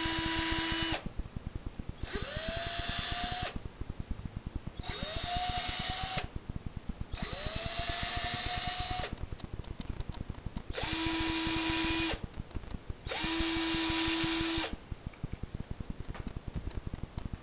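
Cordless drill driving wood screws into a wooden door jamb to mount gate clasps, in six short bursts of motor whine with brief pauses between. In three of the bursts the whine rises as the motor spins up.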